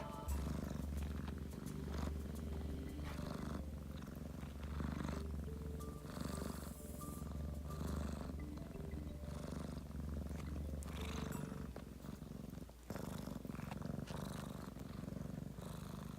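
Kitten purring close to the microphone, a steady low rumble that swells every second or two. The deepest part of the purr fades about eleven seconds in, with a brief break shortly after.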